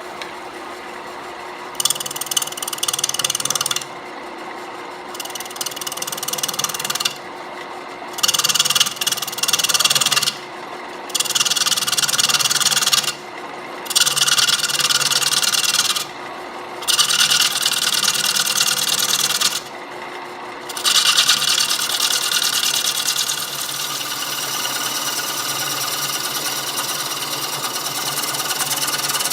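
Wood lathe running with a turning tool cutting a dried walnut bowl blank: a scraping hiss from the tool in repeated passes of a couple of seconds each, broken by short pauses, then one continuous cut through the last several seconds. The lathe motor hums steadily underneath.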